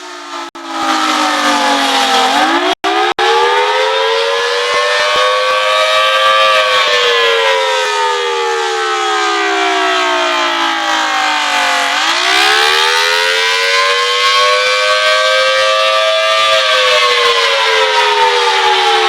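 Outdoor tornado warning siren sounding a wail, loud and close, its two-tone chord sliding slowly up and down in pitch. It falls to a low about two seconds in, rises to a peak around six seconds, falls to another low near twelve seconds, rises again and falls away near the end. The audio cuts out for an instant three times in the first few seconds.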